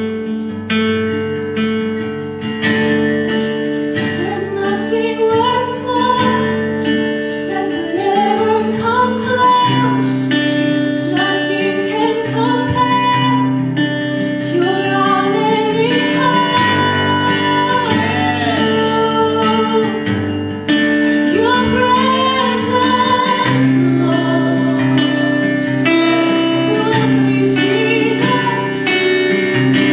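A live worship song: an acoustic guitar strumming chords and a woman singing the melody, her voice coming in several seconds after the guitar.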